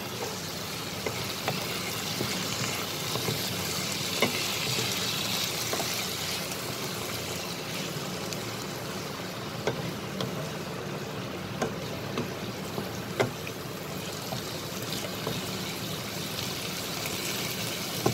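Mushroom and capsicum masala sizzling in a nonstick kadai as it is stirred with a wooden spatula: a steady frying hiss, with a few sharp knocks of the spatula against the pan.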